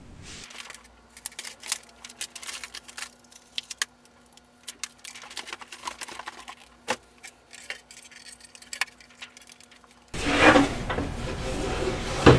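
Small scattered clicks and clinks of handling over a faint steady hum. About ten seconds in, much louder music cuts in abruptly.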